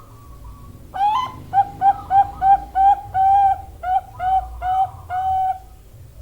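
Zebra dove (perkutut, Thai 'bangkok' song line) hen calling: a rising opening note about a second in, then a rapid run of about a dozen short coos on one pitch, two of them held longer, stopping near the end.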